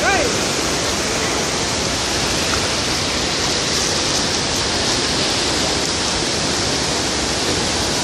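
Water rushing steadily over a low river weir, a constant even roar with no let-up.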